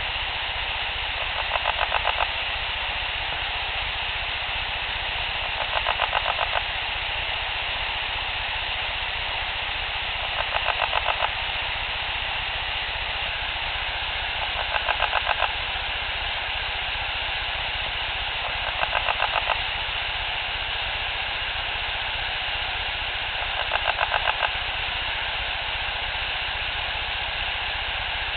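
An unidentified rasping, throaty sound, each a short train of rapid pulses lasting under a second, repeated six times at a steady pace of about one every four seconds, over a constant hiss.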